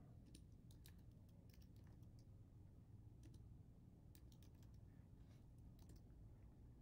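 Faint computer keyboard typing: scattered single keystroke clicks and short runs of them.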